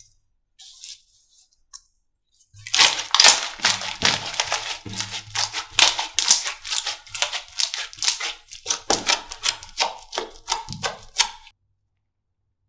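Slime being squeezed and pressed by hand, giving a dense, irregular run of crackling pops and clicks. It starts a couple of seconds in and stops shortly before the end.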